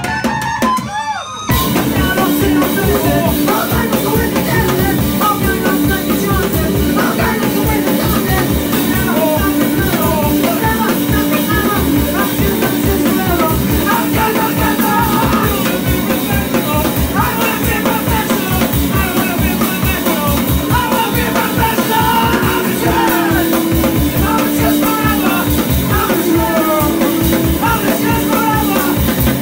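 Live punk band playing electric guitars and a drum kit. A sparser guitar passage gives way to the full band about a second and a half in, driven by a steady, regular drum beat.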